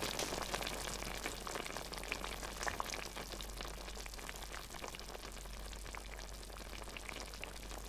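Iron pot of stew simmering over a hearth fire: a steady soft hiss with scattered small crackles.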